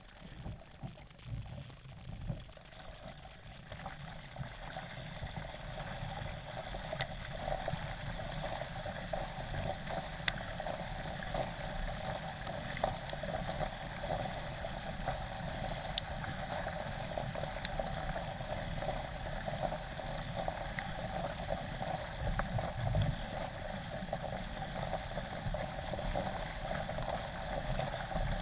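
Water rushing and splashing along the hull of a K1 racing kayak being paddled at pace, picked up by a camera mounted on the boat's deck. It grows louder over the first few seconds, then holds steady.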